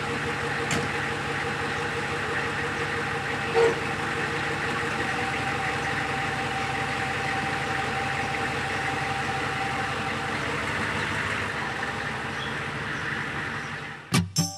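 Humvee's V8 diesel engine idling steadily, with a brief knock about three and a half seconds in.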